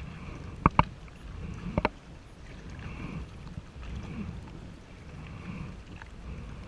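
Kayak paddling: two quick pairs of sharp knocks on the kayak within the first two seconds, then soft swishes of the paddle in the water about once a second, over a low rumble.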